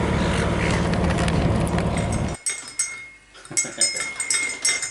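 A steady low rumble that cuts off suddenly about two and a half seconds in. After a short quiet, light clinks of cutlery against crockery follow.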